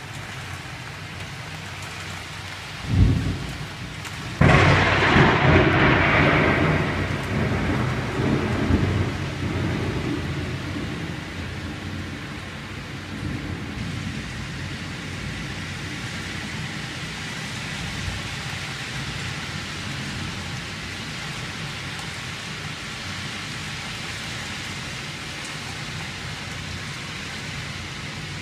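Heavy rain falling steadily through a thunderstorm. About three seconds in there is a short low thump, then a sudden loud thunderclap that rumbles on and fades away over several seconds.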